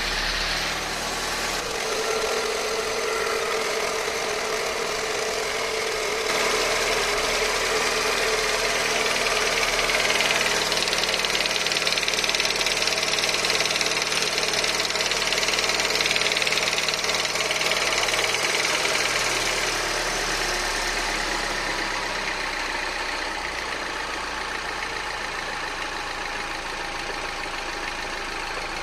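Peugeot RCZ THP 200's 1.6-litre turbocharged four-cylinder engine running just after a cold start, with a rattle whose cause the owner cannot identify. It gets a little louder several seconds in and eases off again near the end.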